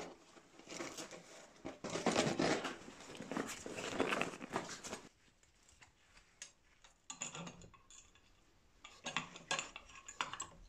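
Metal tools and bicycle brake parts clinking and rattling as a road bike's brakes and cables are taken apart. There is a dense stretch of clatter over the first five seconds, then two shorter bursts near the end.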